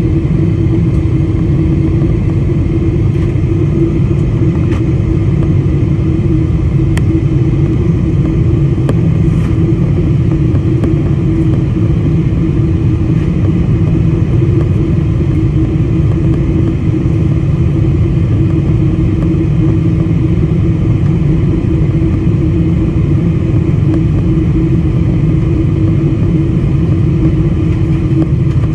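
Jet airliner cabin noise on final approach: a steady drone of the turbofan engines and rushing air, with a constant tone running through it.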